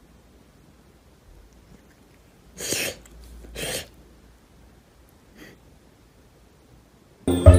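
A cat sneezing twice, about a second apart, then a faint third sniff. Music cuts in at the very end.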